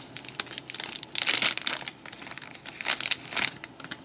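Irregular crinkling and rustling from something being handled, loudest about a second in and again near the end.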